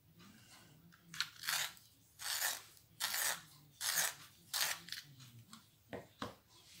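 Wax coloured pencils being handled as a yellow one is picked out and readied: a run of about six scratchy, crunching noises, then two short clicks near the end.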